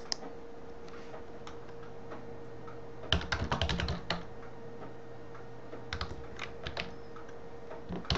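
Computer keyboard typing in two short runs of keystrokes, about three seconds in and again about six seconds in, over a faint steady hum.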